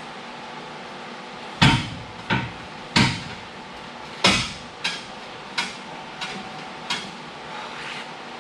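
Sharp metallic knocks on a steel exhaust tailpipe as it is forced up into its rubber hanger, about eight blows at uneven spacing, the first few the strongest, each with a short ring.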